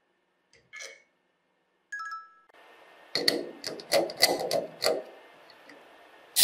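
A brief metallic clink, then a run of about seven sharp metal-on-metal taps over roughly two seconds as a screw extractor bit is worked into a stripped screw head in wood.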